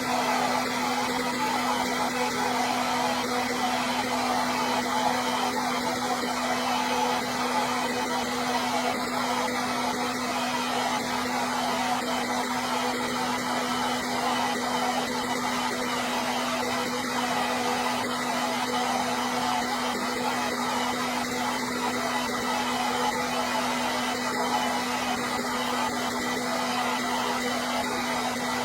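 Hair dryer running steadily: a continuous blowing rush with a steady motor hum.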